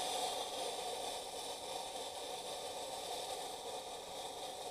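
Refrigerant gas hissing out of an air conditioner's sawn-through line, the system not discharged first; a steady hiss that slowly dies away.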